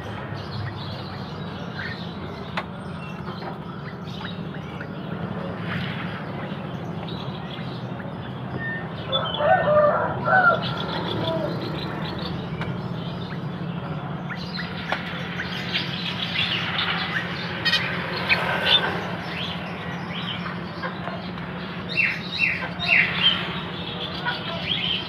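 Many caged songbirds chirping and calling, in short bursts of quick high chirps, over a steady low hum and background murmur.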